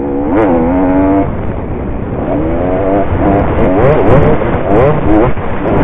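Dirt bike engine revving hard under the rider, its pitch climbing and dropping repeatedly with the throttle over a rough rumble of wind and track noise.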